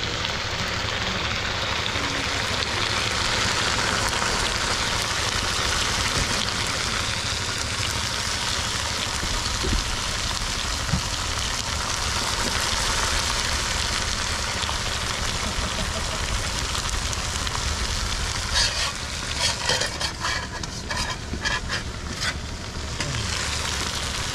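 Fish frying in hot oil in a pan, a steady sizzle. About three-quarters of the way through comes a run of sharp clicks and scrapes against the pan.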